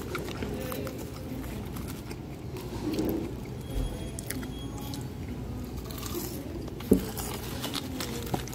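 Close-up eating and food-handling sounds: crunching and chewing, and a hand rummaging through a cardboard box of fries and ketchup packets, giving scattered small crackles and clicks. A sharp knock about seven seconds in is the loudest sound.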